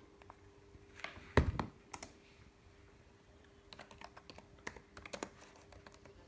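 Computer keyboard keys clicking in scattered bursts, with a louder knock about a second and a half in and a quick run of key clicks in the second half, over a faint steady hum.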